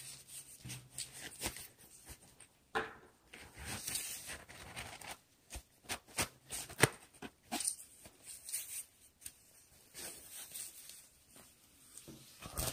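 Rustling and scraping of an elastic neoprene belly band holster being handled, with scattered clicks and knocks as a pistol is worked into its pocket; the sharpest knock comes about seven seconds in.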